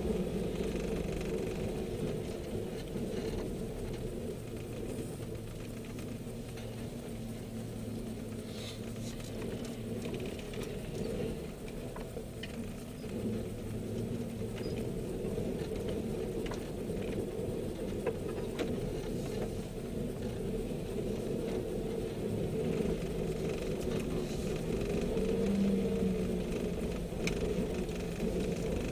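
A Suzuki Samurai's engine running at low revs, heard from inside the cabin as the 4x4 creeps over a rough dirt track, with scattered clicks and rattles from the body and the ground. Near the end the engine picks up briefly.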